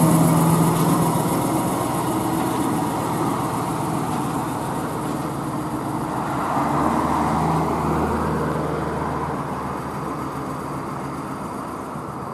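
Heavily loaded cargo truck's diesel engine running as it passes close by and pulls away, the sound fading steadily. It swells briefly again about seven seconds in.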